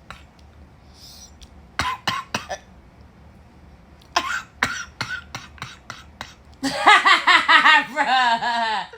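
A man coughing in forced, exaggerated bursts: three quick coughs about two seconds in, then a longer run of coughs. Near the end comes a loud stretch of rhythmic laughter.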